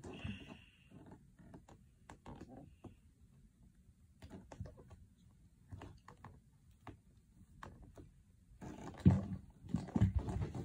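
Small clicks and rustles of hands handling a doll and its accessories, with a few louder thumps near the end.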